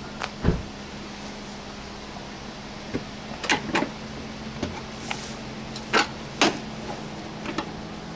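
Chrysler PT Cruiser's plastic tail-light assembly being pulled by hand out of its retaining clips: a scattering of sharp clicks and knocks, most of them between about three and seven seconds in, over a steady low hum.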